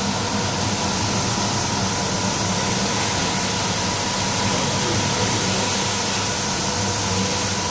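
MAXIS automatic carpet washing machine running, its row of rotating brush heads scrubbing a wet, foamy carpet on the conveyor. It makes a steady motor hum under an even hiss of water and spray.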